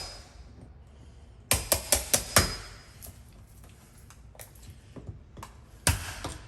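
Hammer striking a wood chisel while cutting a mortise in wood. There is a quick run of about five sharp blows, a few light taps, then one more hard blow near the end.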